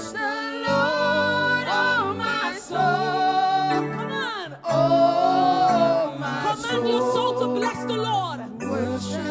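Worship team singing slow held notes over sustained keyboard chords.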